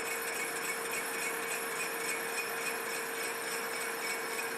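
Metal lathe running at slow speed, taking a light turning pass across the outside diameter of a cast iron wheel. It makes a steady hum with a fainter higher tone that pulses evenly.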